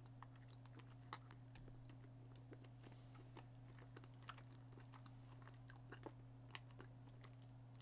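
Faint, soft chewing of a chewy mochi rice cake filled with fruit, cream and sweet bean paste, heard as scattered small wet clicks over a steady low hum.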